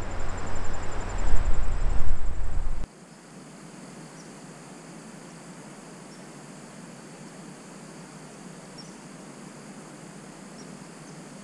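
Loud low rumbling noise on the microphone that cuts off abruptly about three seconds in, leaving a faint steady outdoor hiss with a few faint high ticks.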